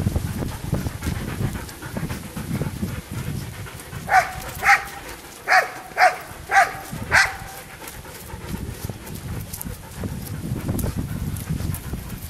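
A dog barks six short, sharp times, in quick pairs between about four and seven seconds in, over low rustling noise.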